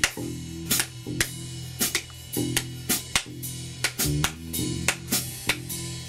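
Acoustic trio playing an instrumental groove: a drum kit striking sharply about two or three times a second over plucked low notes from mandocello and guitarron.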